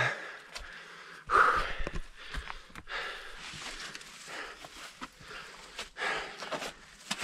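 A climber breathing with effort while scrambling up steep rock, two stronger breaths standing out, mixed with a few short scuffs and knocks of hands, boots and gear on the stone.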